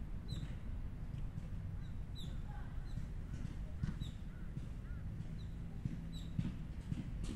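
Outdoor ambience: a small bird repeats a short, high chirp about once a second, with a few softer arched bird notes partway through, over a steady low rumble.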